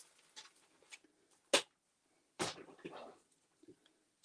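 Pages of a thick, painted mixed-media art journal being leafed through by hand: two sharp paper flaps about a second apart, the second followed by a brief rustle of paper.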